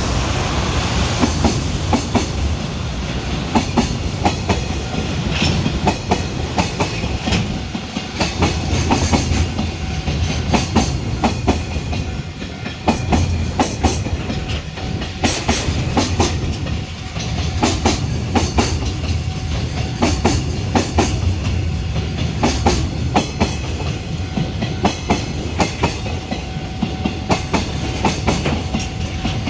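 Container freight train hauled by an EH500 electric locomotive rolling past, with a steady rumble and a regular clickety-clack of wagon wheels crossing rail joints.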